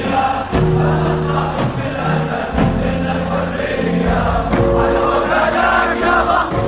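Music: a group of male voices singing or chanting in chorus over a steady beat.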